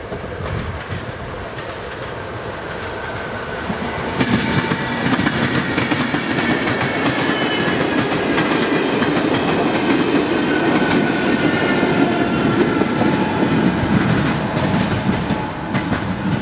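Passenger train passing over a level crossing, its wheels clacking rapidly over the rail joints, with a faint high squeal. It swells in about four seconds in, runs loud, and fades near the end.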